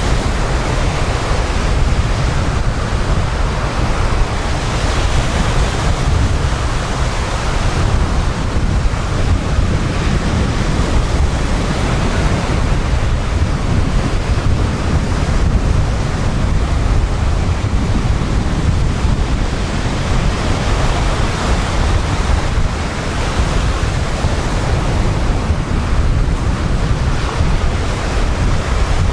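Sea surf: rows of waves breaking and washing up a sandy beach in a continuous rushing wash, with wind buffeting the microphone as a steady low rumble underneath.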